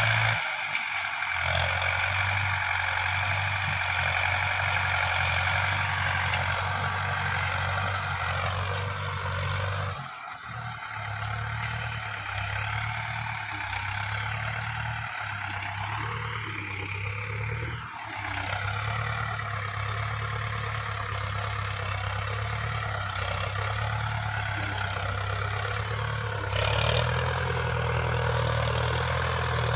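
Mahindra tractor's diesel engine running under heavy load as it pulls a trailer piled with sugarcane. A steady low engine note is joined by a higher whine that rises and falls with the revs, and the sound gets louder near the end.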